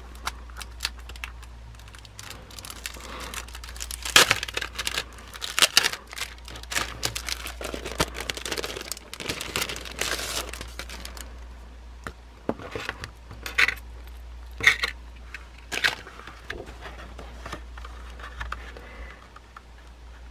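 Plastic and paper merchandise packaging being handled and opened: crinkling, rustling and tearing, with scattered clicks and taps as items are picked up and set down, over a low steady hum. The rustling is densest in the middle.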